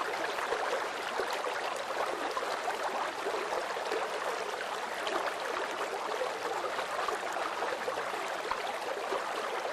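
Running water of a stream, a steady, even rush with no other sound over it.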